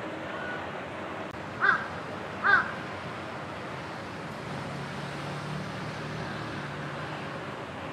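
A crow cawing twice, a little under a second apart, over a steady background hiss.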